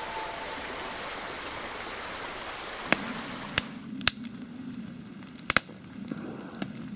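Steady hiss of rain and running water, which cuts off about three seconds in. A few scattered sharp taps follow over a faint low hum.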